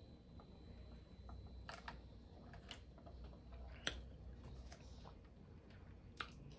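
Quiet room tone with a few faint clicks and small taps as a paper drink cup with a straw is handled and set down. The sharpest tap comes about four seconds in, with another small click near the end.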